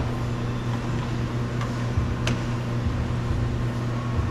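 A steady low mechanical hum, with one sharp click a little over two seconds in as a small piece is worked out of the car door.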